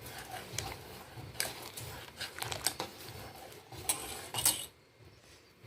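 A spoon stirring jaggery into hot milk in a pot, with irregular clinks and scrapes against the pan that stop near the end.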